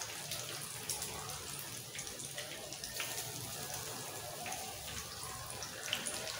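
Hot oil sizzling with scattered crackles around black-eyed pea fritters (akara) frying in a shallow pan, while a slotted spoon turns them.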